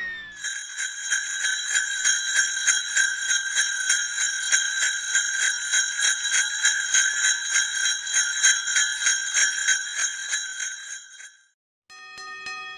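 Sleigh bells shaken in a steady rhythm, about four shakes a second, fading out near the end. After a brief gap, a lower, steady ringing tone begins.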